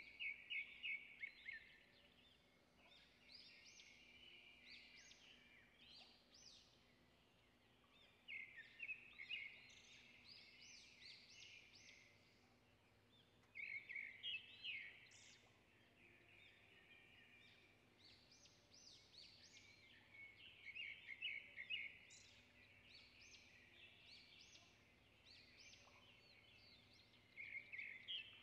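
Faint bird song: short phrases of quick chirping notes, about six of them, each a second or two long and repeated every few seconds.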